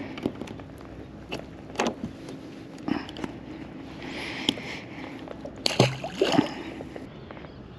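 Small clicks and knocks of a sea robin being unhooked by hand, then a splash about six seconds in as the fish is tossed back into the water.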